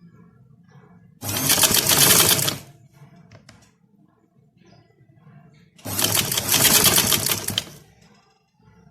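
Electric sewing machine stitching in two short runs of about a second and a half and two seconds, a rapid needle clatter, with faint clicks and fabric rustling in the pauses between.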